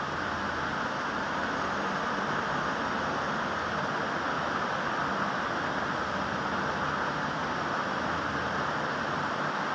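Steady rushing background noise with a faint low hum.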